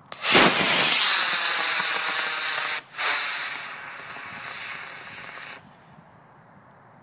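Model rocket motor firing with a loud hiss that starts suddenly, fades over about five seconds and cuts off sharply, with a brief break about three seconds in.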